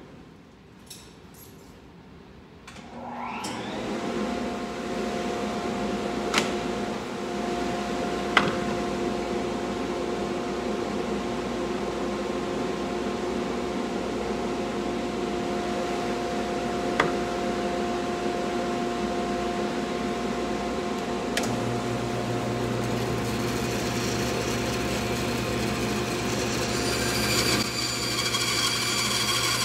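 A shop dust vacuum switches on about three seconds in, spins up and runs steadily with a whine. A few light knocks come as the bandsaw's blade guide is adjusted. About 21 seconds in a Shop Fox bandsaw's motor starts with a low hum, and near the end the sound brightens as the blade begins cutting into a wooden 4x4.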